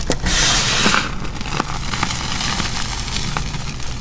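Hands crushing and crumbling soft, powdery gym chalk: a loud crunchy squeeze in the first second, then scattered small crackles as the chalk breaks apart.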